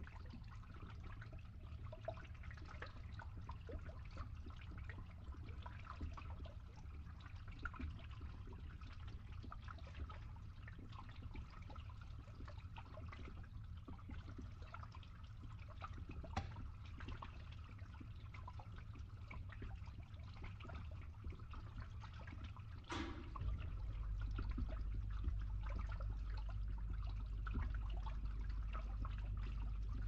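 Water trickling and gurgling as it drains through a pipe, over a steady low rumble. About 23 seconds in there is a sharp knock, and after it the low rumble grows louder.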